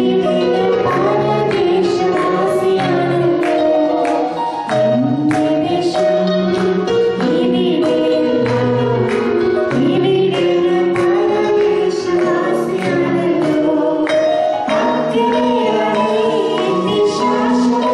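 A woman singing a Malayalam Christian song into a microphone over instrumental accompaniment with a steady beat.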